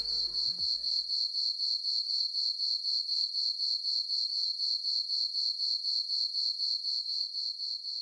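Crickets chirping at night: a steady, evenly pulsing high-pitched trill that keeps going unchanged. The tail of some music fades out in the first second and a half.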